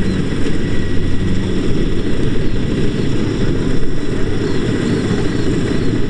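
Kubota DC-70 Plus combine harvester running steadily while harvesting rice: a loud, even diesel-engine and machinery drone, strongest in the low range.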